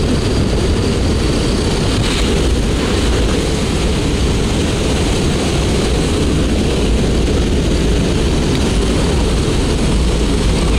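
Steady loud drone of a skydiving jump plane's propeller engine, mixed with wind rushing through the open cabin door, heard from inside the cabin.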